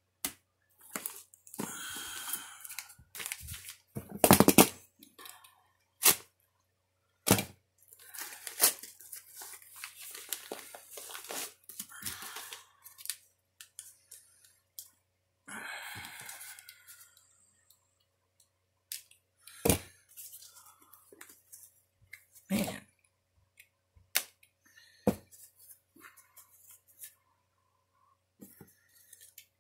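Paper mail packaging and tape being torn and crinkled by hand in irregular stretches, with a number of sharp clicks and knocks in between.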